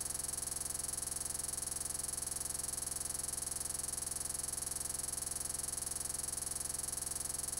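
Steady, unchanging electronic buzz and hiss with a fast, even flutter: a digital glitch in a corrupted recording, not a sound in the room.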